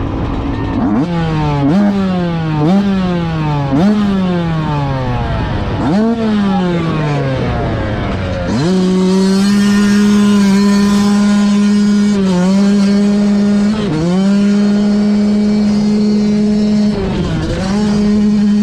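The two-stroke single engine of a 2017 Yamaha YZ125 dirt bike is revved in about five quick blips, each rising sharply and falling away. From about halfway it is held high and steady as the bike pulls away through the sand, dipping briefly in pitch three times at gear changes.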